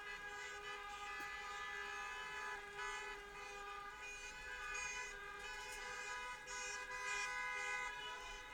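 A flock of geese honking at a distance, many calls overlapping into a steady chorus.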